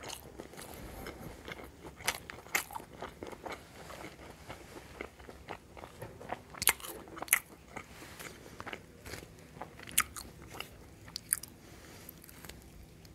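Close-miked chewing of a momo, with many sharp, wet mouth clicks and crunches scattered through it, the loudest near the middle.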